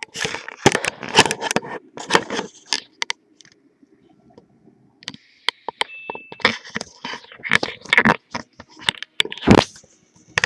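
An irregular string of sharp pops and cracks, coming in dense clusters, with a quieter pause in the middle.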